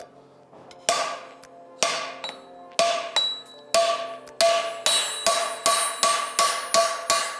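Hand hammer striking the rim of a pressed carbon steel skillet on a steel block, hammering out the wrinkles left by the press, each blow making the pan ring. The blows come about once a second at first, then quicken to about three a second from halfway.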